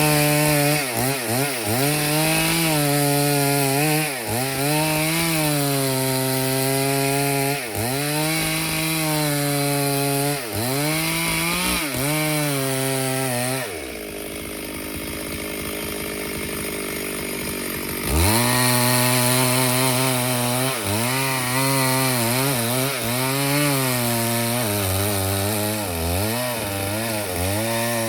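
Stihl 070 two-stroke chainsaw cutting through wood, its engine pitch sagging under load and picking back up again and again. About halfway through the engine note falls away for about four seconds, then rises back into the cut.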